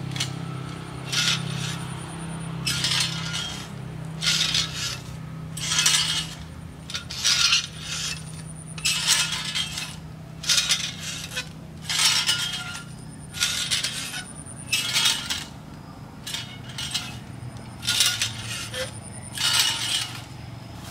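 Metal clinks and rattles from a standing-type coconut-tree climbing device as the climber steps down it. Its foot pedals and steel cable shift and grip on the trunk with each step, about one burst every second and a half.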